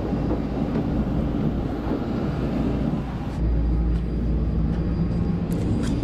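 Steady low engine rumble of airport ground noise. About three and a half seconds in, the deep rumble grows louder and the high hiss drops away, with a few faint ticks after.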